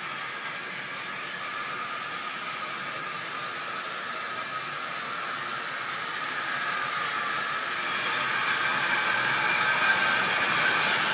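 Model railway locomotive and rolling stock running on the track out of sight, a steady electric-motor whir with wheel-on-rail noise. It grows louder from about two-thirds of the way in as the train approaches.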